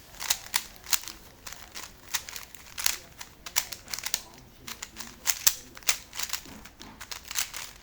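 3x3 Rubik's Cube being twisted at random to scramble it, its plastic layers giving an irregular run of sharp clicks and clacks, about three a second.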